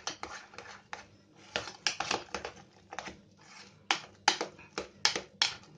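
A spoon stirring thick mashed potatoes in a pot, with irregular clicks and knocks as it strikes the pot's sides, the loudest strikes in the second half. The potatoes are being stirred together with hot milk and butter.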